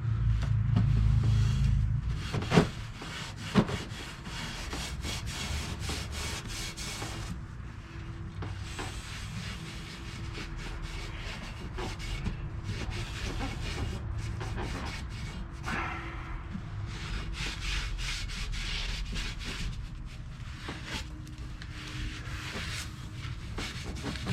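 Soft-bristled brush scrubbing caked oily grime off a metal engine part in mineral spirits, a steady run of scratchy back-and-forth strokes. Two sharp knocks a few seconds in, as the part or a tool is set down.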